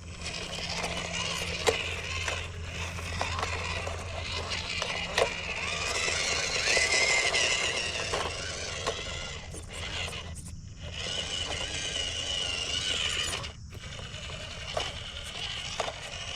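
Small electric RC crawler truck driving over rough ground: a wavering motor-and-gear whine that rises and falls with the throttle, with scraping and clicking from the tires and chassis.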